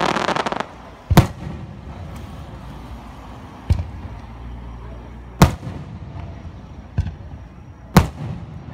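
Aerial firework shells bursting: a brief rapid crackle at the very start, then five sharp booms, each with an echoing tail, the loudest about a second in, a little past halfway and near the end.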